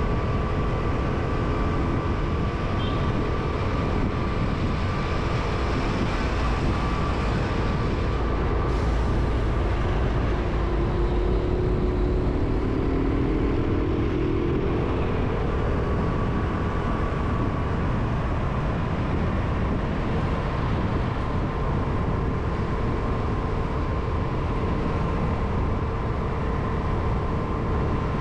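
Steady road noise of a vehicle travelling along a city street amid traffic, with constant engine tones. About halfway through, another engine note passes, dropping in pitch.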